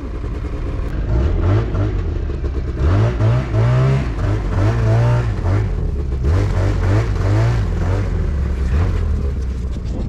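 Gas-powered ice auger engine revving up and down as it drills a hole through lake ice.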